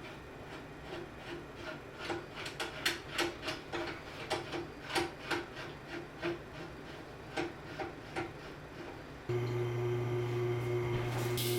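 Hand strokes of a tool rubbing against material, about three a second for several seconds, typical of filing, rasping or sanding in knife and handle work. About nine seconds in, an electric shop machine starts with a steady hum, and near the end a louder hissing grind begins over it.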